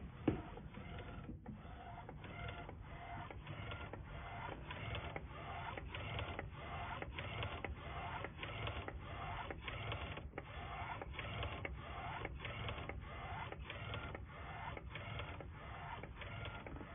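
EraSmart A3 DTF PET-film inkjet printer printing. Its print-head carriage sweeps back and forth about twice a second, each pass a short motor whine broken by a brief gap at the turn. A sharp click comes about a third of a second in.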